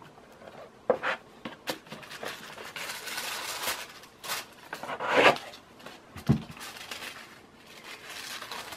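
Tissue paper rustling and a cardboard gift box being handled as it is unwrapped, with scattered light taps, a louder swish about five seconds in and a dull thump just after.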